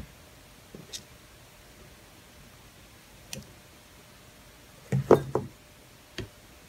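A few separate sharp clicks and small knocks from hand tools and a thin jumper wire being handled over a laptop logic board, with the loudest cluster of knocks about five seconds in.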